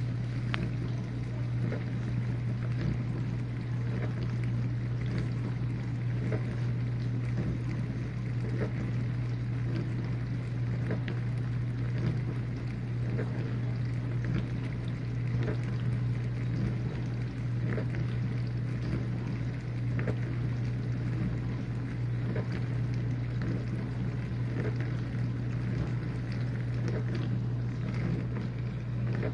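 Whirlpool dishwasher running mid-cycle: a steady motor hum with water spraying and splashing inside the tub.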